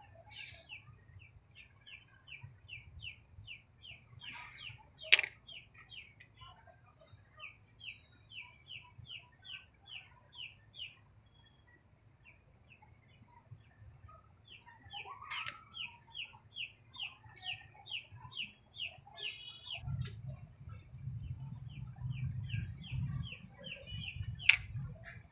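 Long runs of short high chirps, about three a second, from a calling animal, stopping and starting again several times. A sharp click about five seconds in and another near the end, as a bottle-cap dama piece is set down on the board, with a low rumble of handling over the last few seconds.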